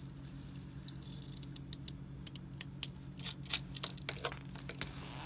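Stitches being unpicked from a trouser seam, threads cut one after another: a run of small sharp snips and clicks, thickest about three to four seconds in, over a steady low hum.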